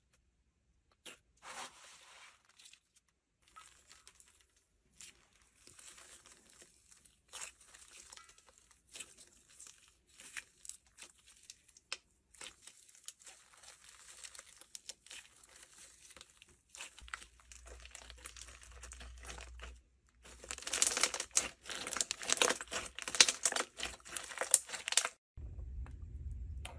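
Clear slime being squished and kneaded into a bowl of small foam beads: sticky crackling and popping with the beads rustling, sparse at first and denser and louder over the last few seconds. Near the end it cuts to a steadier low sound.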